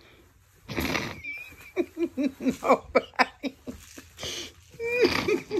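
A person laughing: a breathy burst about a second in, then a run of short ha-ha pulses at about four a second, and another laugh near the end.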